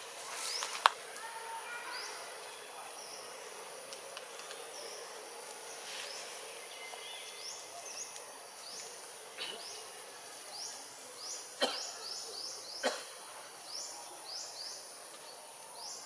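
Outdoor nature ambience: birds calling in quick runs of short, high, falling chirps over a steady high insect drone, with a few sharp clicks or snaps, one about a second in and two more in the last third.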